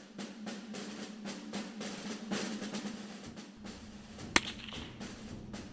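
Theme music with a snare drum roll and percussion, then a single sharp .22 rimfire rifle shot about three-quarters of the way in, the loudest sound, with a short ring after it.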